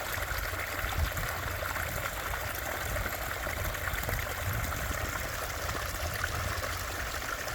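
Water running steadily down a short backyard stream and spilling over several small waterfall drops into a pondless basin, a continuous splashing and trickling.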